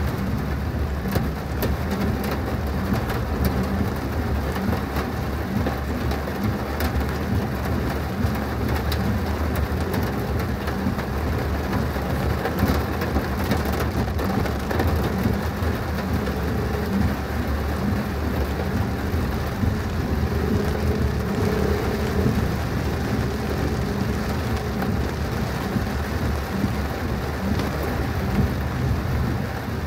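Heavy thunderstorm rain pelting down steadily: a dense patter of countless drops over a low rumble.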